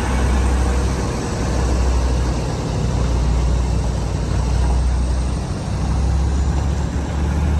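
Excavator's heavy engine running with a deep rumble that swells and eases about every second and a half.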